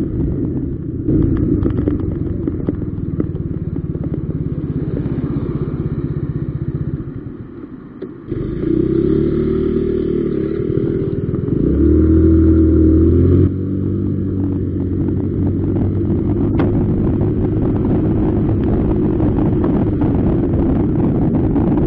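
Motor scooter engine running under way. It drops low about seven seconds in, picks up again, and runs louder and higher for a couple of seconds a little past the middle as the scooter pulls away. It then settles to a steady cruise.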